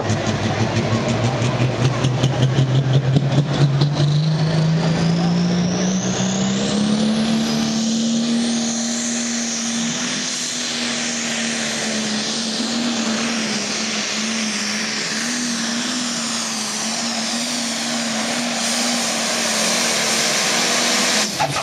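Pro stock pulling tractor's turbocharged diesel engine at full power under load while pulling the sled. Its pitch and the turbo whine climb over the first seven seconds, then hold at high revs with a slight wavering.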